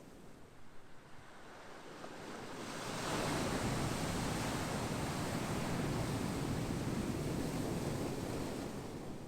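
Ocean waves: a wave builds about three seconds in and washes in for several seconds, then eases off near the end.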